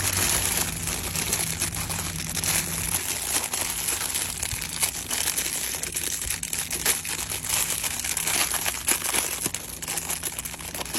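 Plastic packaging crinkling and rustling as small bags of 1:64 scale toy car wheels and tires are handled and opened, with irregular crackles throughout.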